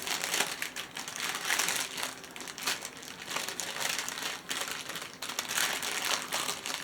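Crinkling of plastic packaging from a diamond painting kit, handled in a run of irregular crackles.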